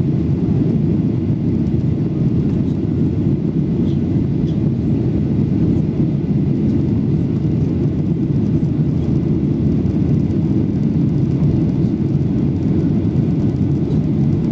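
Steady low cabin noise inside a Boeing 737-800 climbing out after takeoff: its CFM56 engines and the airflow, heard from a window seat over the wing.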